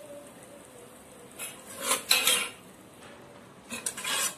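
Flat metal spatula scraping and clattering against a clay pot while stirring a wet tomato-and-spice mixture, in two bursts of strokes, about two seconds in and again near the end.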